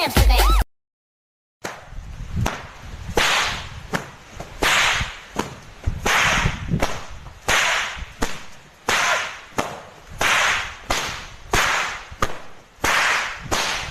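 A short end of music, then after about a second of silence a long run of sharp swishing lashes, about one and a half a second, like a whip being swung and cracked over and over.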